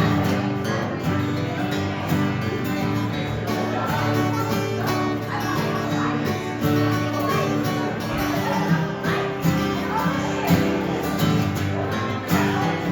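Live acoustic guitar music in a country-folk style, strummed in a steady rhythm.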